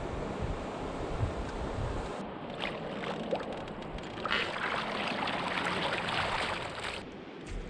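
A canoe being paddled: paddle strokes in the water over a steady rushing hiss of water and wind, which grows brighter and louder from about two seconds in and drops back near the end.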